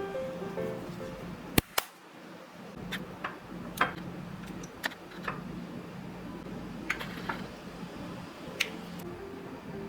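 Kitchen work: scattered sharp clicks and taps of utensils and dishes, two loud ones about a second and a half in, over a low steady hum.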